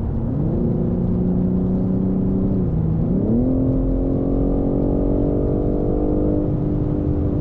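BMW engine pulling on the road, with steady tyre and road noise underneath: the engine note climbs, dips briefly about three seconds in, then climbs higher and holds steady.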